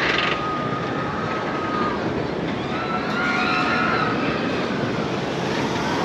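Steady outdoor rumble and wind on the microphone, with a faint whine that rises and falls about halfway through.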